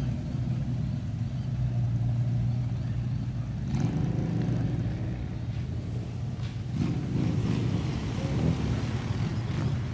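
Car engine running steadily at low revs as it rolls slowly past. About four seconds in an engine revs up and back down, and near the end another engine swells louder.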